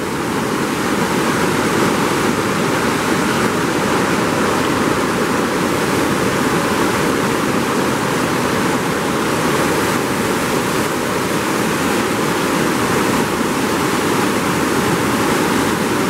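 Steady, loud rushing of a swollen river in flood, its fast current churning through white-water rapids.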